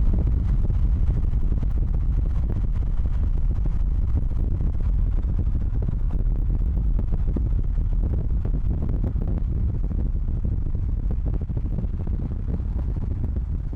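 Steady low rumble of a car driving at highway speed: tyre and road noise with engine running.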